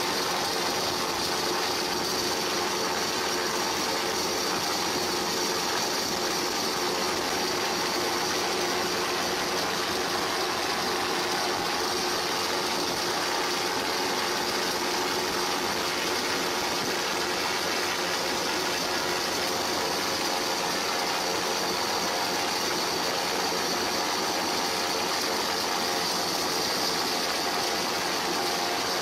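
Steady mechanical hum with hiss, running at an unchanging level with a few faint steady tones in it.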